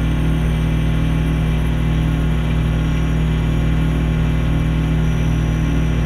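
Microwave oven running: a loud, steady low hum that holds unchanged throughout.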